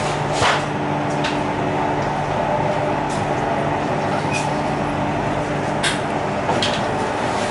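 Steady running noise of a CR400BF high-speed train at speed, heard from a motor car's vestibule: the traction motors' hum with several steady tones over rumble. A few short sharp clicks come through it.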